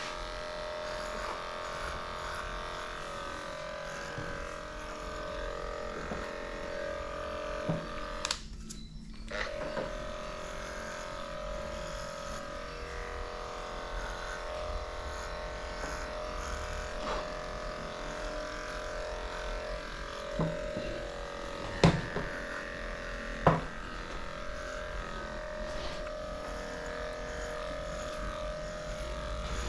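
Electric dog-grooming clipper running steadily as it shaves a matted coat, with a short break about eight seconds in. A few sharp clicks cut through it, the loudest two in the last third.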